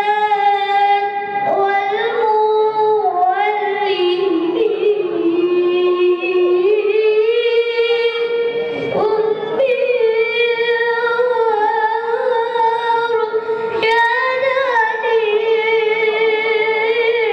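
A single high voice singing a slow, unaccompanied melody of long held notes with ornamented turns between them.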